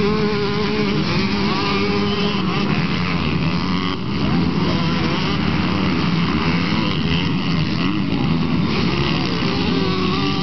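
Several motocross bikes running on a dirt track at once, their engines overlapping and rising and falling in pitch as the riders open and close the throttle.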